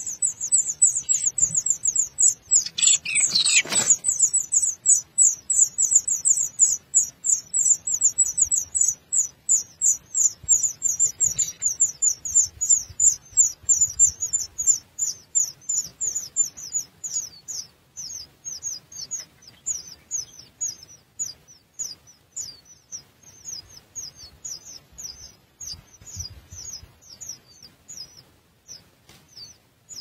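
Blue rock thrush nestlings begging with a fast run of short, high-pitched cheeps, several a second, growing fainter over the second half. A brief, louder rustle comes about three seconds in.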